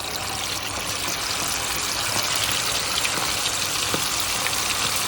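Marinated chicken pieces deep-frying in hot oil: a steady sizzle with small crackles and pops.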